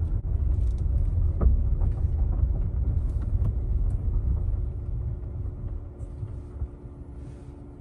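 Low rumble of a car's road and engine noise heard from inside the cabin, growing quieter over the second half as the car slows and pulls in.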